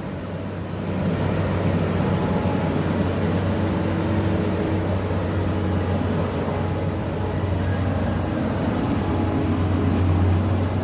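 Skid steer engine running steadily while it is operated, getting louder about a second in.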